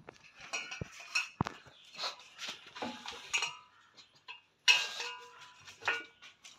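Pug eating from a stainless-steel bowl on the floor: its muzzle knocks and pushes the bowl, giving irregular clinks and short metallic rings, the loudest a little under five seconds in.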